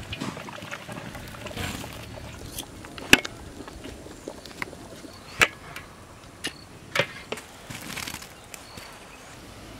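Drained rice tipped from a perforated metal strainer into a large aluminium cooking pot: soft rushes of grains falling, with three sharp metal knocks as the strainer strikes the pot.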